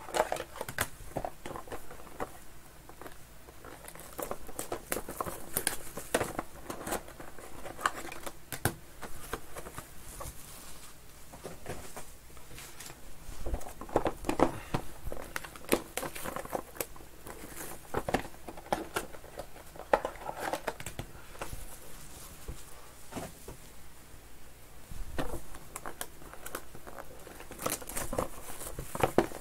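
Hands handling cardboard trading-card boxes and crinkly plastic wrap: irregular rustling and crinkling with many scattered clicks and knocks.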